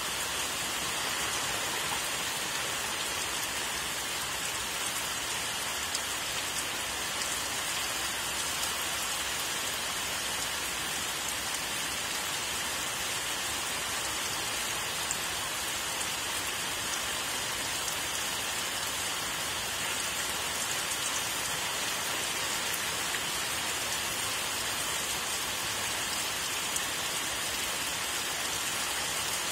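Steady rain falling on tree foliage: an even hiss, unchanging throughout, with faint scattered drop impacts.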